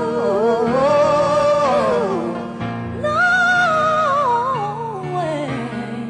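A female vocalist sings a slow ballad live into a handheld microphone over soft accompaniment. She sings two long phrases with vibrato, with a short breath between them about two and a half seconds in.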